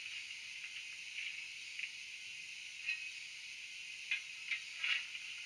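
Steam sound of a standing GWR 16xx pannier tank played by a LokSound 5 DCC sound decoder through the model's tiny speaker: a steady hiss with no bass. Short scraping clicks come every second or so, closest together between about four and five seconds in.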